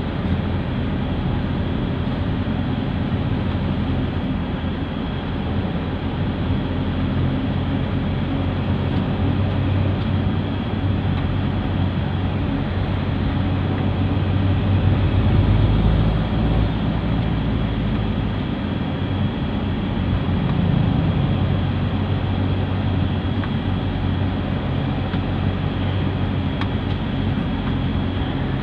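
Motor vehicle travelling on the highway: a steady low engine drone with road noise, swelling briefly about halfway through and again a few seconds later.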